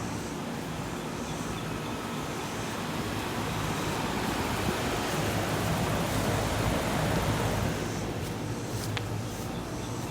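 2012 Carrier Comfort air conditioner running: a steady rush of fan air over a low hum. It swells louder for a few seconds in the middle, then eases back, with a single sharp tick near the end.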